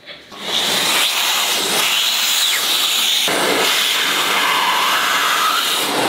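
Vacuum cleaner switched on, its motor rising to a steady loud rushing hiss within the first second. The hose nozzle is worked over cloth, and the airflow's tone wavers briefly near the end.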